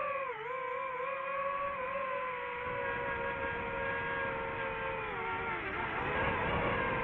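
DJI FPV drone's motors and propellers whining steadily. The pitch dips briefly about half a second in, then falls and wavers near the end as the throttle changes.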